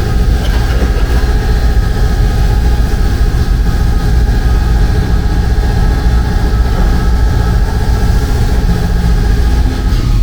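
A machine running steadily with a heavy low rumble and a steady whine; the whine stops near the end.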